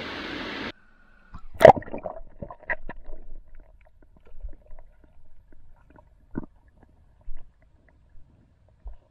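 Rushing stream water that cuts off suddenly under a second in as the camera goes underwater. After that come muffled underwater knocks, clicks and gurgles, the loudest a sharp knock soon after the cut.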